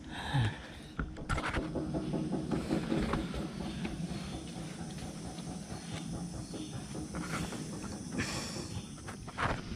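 Walking noise from a hiker going down a slippery trail: a few rustles and steps near the start and near the end, over a steady low rumble with a faint hum in it.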